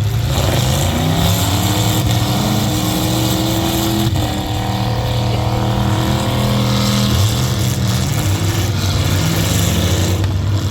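Several demolition derby truck engines running and revving together, their pitches rising and falling over one another, with a single sharp knock about four seconds in.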